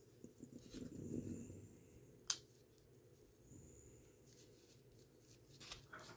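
Fingers handling a vintage Gruen wristwatch case while the case back is fitted: soft handling noise with small clicks, then one sharp click about two seconds in, and a few light clicks near the end.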